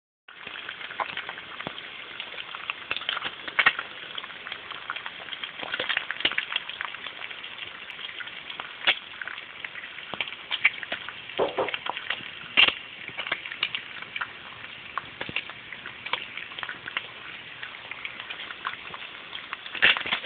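Bacon strips frying in a pan: a steady sizzle with frequent sharp pops and crackles scattered through it.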